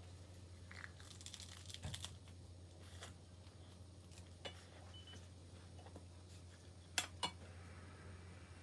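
Quiet eating sounds: the crisp seaweed (gim) wrapper of a triangle kimbap crackling and tearing as it is bitten and chewed. Near the end come two sharp light clicks as a paper ramen cup with wooden chopsticks in it is picked up off the counter.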